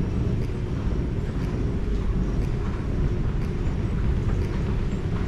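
Steady low background rumble, with faint light ticks about once a second.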